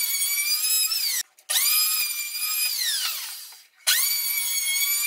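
Electric hand planer cutting across a laminated pine 2x4 bench top, sped up five times so its motor whine sounds very high. The whine runs, breaks off about a second in, starts again, falls in pitch as the motor winds down a little past the middle, then starts up once more.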